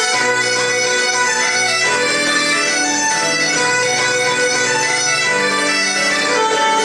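Bagpipes playing a tune over steady drones, with fiddle and keyboard joining in as a small folk band.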